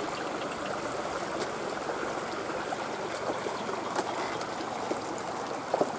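Water flowing steadily in a small irrigation ditch beside rice paddies, an even rushing trickle.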